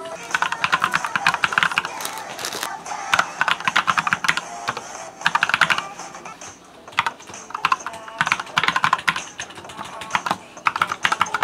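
Computer keyboard typed on quickly, clattering keystrokes in rapid runs broken by brief pauses.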